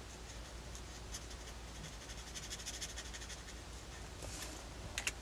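Marker nib scratching faintly on sketchbook paper in short strokes as an area is coloured in, with a few sharp clicks near the end.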